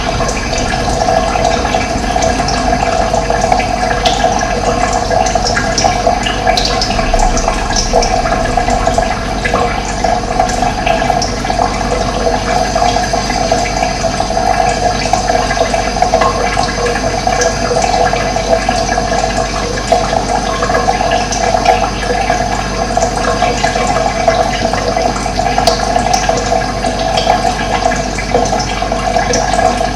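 Running water flowing steadily, an even rushing and splashing without a break.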